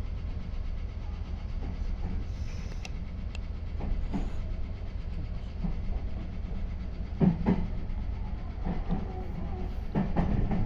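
Meitetsu 3500 series electric train running, heard from inside the leading car: a steady low rumble, with the wheels clacking over rail joints in pairs several times in the second half.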